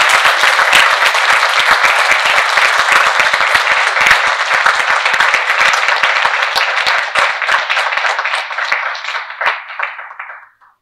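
Audience applauding: many hands clapping together, steady, then thinning out and stopping near the end.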